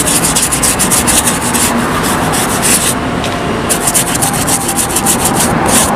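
Fine plastic-bristle brush scrubbing cleaning gel into a suede boot in rapid back-and-forth strokes, with a short pause about three seconds in.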